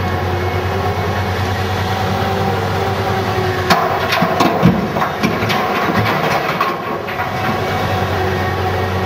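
Heavy diesel engines running steadily, with the loaded bucket of a Komatsu PC750SE-7 excavator being emptied into a Komatsu HD605 dump truck: about four seconds in, a clatter of blasted basalt rocks crashing into the truck's steel bed, lasting about two seconds.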